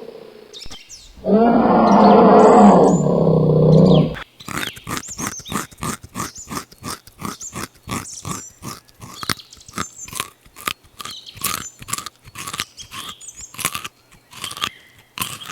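An animal's long, loud call lasting about three seconds, then a fast run of short, sharp sounds, several a second.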